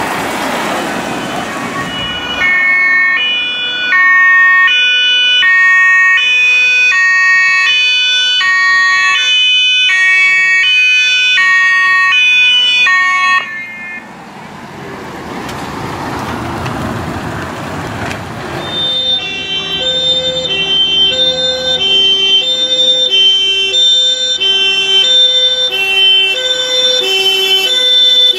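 German two-tone emergency-vehicle sirens (Martinshorn) on passing rescue vehicles. One siren alternates between two notes for about eleven seconds. A vehicle then drives past without tones, and about two-thirds of the way in a second, lower-pitched two-tone siren starts and keeps alternating.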